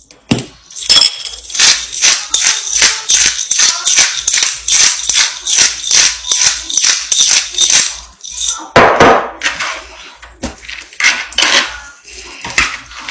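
Spice shaker shaken rapidly and rhythmically, its seasoning rattling about twice a second. A heavier, lower rustle comes about nine seconds in before the shaking resumes.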